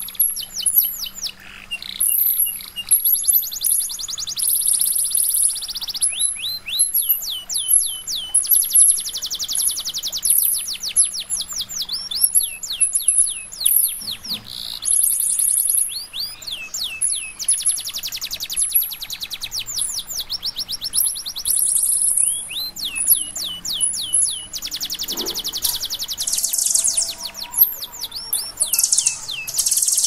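Kinoi songbird singing a loud, fast, varied song: runs of quick whistled sweeps, long buzzy trills and high squeaky notes, almost without pause.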